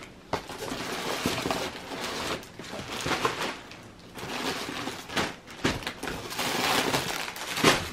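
Plastic-wrapped clothing packages rustling and crinkling as hands rummage through a cardboard box, with light knocks and scrapes against the cardboard.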